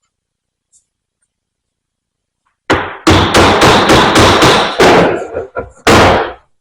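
Hammer blows during the strip-down of a hydraulic vane pump. Almost three seconds of silence, then a single blow, a quick run of blows at about five a second, a few lighter taps, and one last blow near the end.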